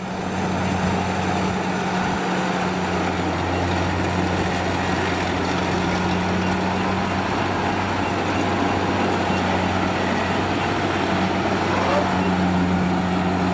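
Kubota DC70 rice combine harvester running steadily while cutting and threshing, its four-cylinder Kubota V2403 diesel giving a constant hum under the noise of the machinery.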